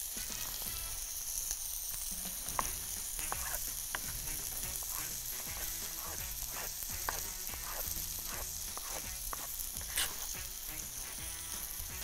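Chicken breast sizzling steadily on a hot grill pan, with scattered short crackles and knife clicks over it and one sharper click about ten seconds in.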